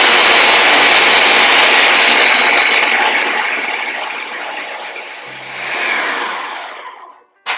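Countertop blender running at full power, grinding soaked peanuts with onions, spices and water into a paste. The steady motor-and-blade noise slowly eases, swells once more, then winds down and stops near the end.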